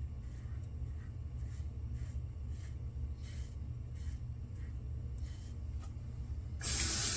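Safety razor scraping through lather in short strokes, about two or three a second, over a low steady hum. Near the end a tap is turned on and water runs loudly into the sink.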